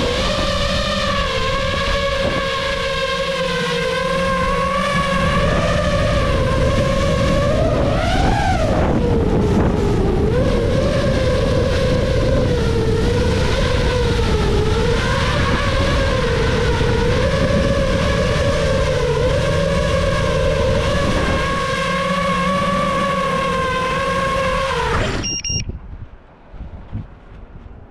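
Nazgul5 five-inch FPV quadcopter's motors and propellers whining in flight, the pitch wavering with the throttle and rising sharply about eight seconds in, with wind buffeting the microphone. Near the end the motor whine cuts off suddenly, a brief beep follows, and then only wind noise remains.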